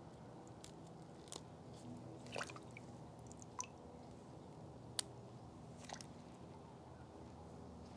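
Faint clicks, crackles and soft squishes of gloved hands handling a bare-root anthurium's roots and stems, with a few separate sharp clicks and the sharpest one about five seconds in.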